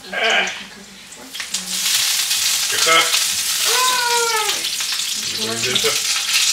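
Meat cutlets going into hot oil in a small frying pan. A loud, steady sizzle sets in about a second and a half in and keeps going.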